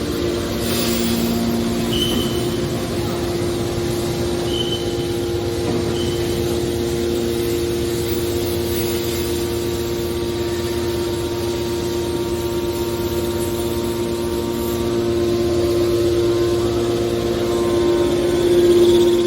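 Hydraulic scrap-metal baler running: a steady machine hum from its motor and pump, swelling briefly near the end.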